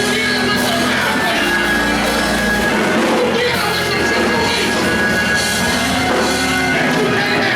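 Loud live band music with singing, a full mix of instruments and voices held steady throughout.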